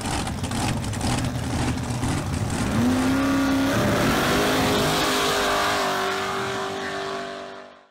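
Car engine revving as an intro sound effect: a loud rumbling run-up, with a rise in pitch about three seconds in, then holding a high steady note before fading out near the end.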